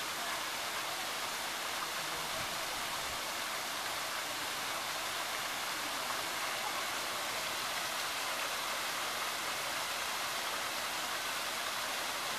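Steady rush of water spraying from a shower jet in a rock wall and splashing into a pool.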